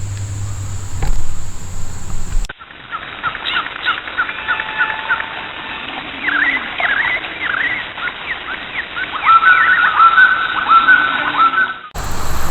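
After a couple of seconds of steady low hum, birds call: a run of quick short chirps, then a string of repeated whistled notes near the end.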